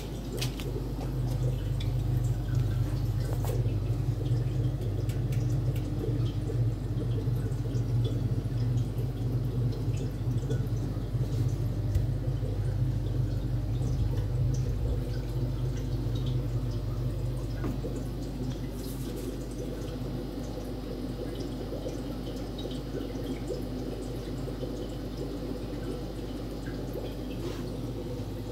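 Steady low hum of aquarium air pumps, with water dripping and trickling in the tanks.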